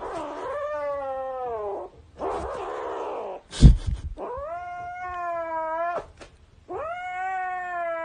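A grey kitten gives three long, drawn-out meows, the first falling in pitch. Between the first two there is a breathy, noisy cry. A loud thump comes a little past halfway.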